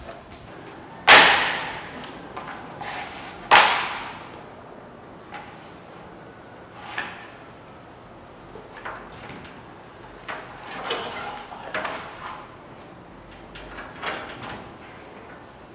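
Two loud, sharp knocks about a second apart at the start, then softer scattered taps and rustles of a leather welt strip being handled and pulled on a workbench.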